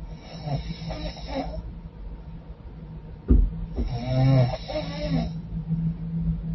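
A woman snoring through a congested, runny nose. There are two snores about three seconds apart, and the second is louder and starts abruptly.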